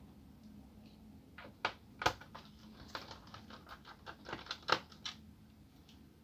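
A run of light, irregular clicks and taps, about a dozen over some four seconds, from a screwdriver working the small screws out of a laptop's plastic bottom case.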